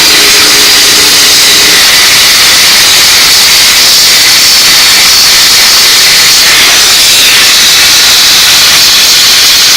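Steam cleaner spraying a jet of steam onto an automotive alternator to lift the grime: a loud, steady hiss.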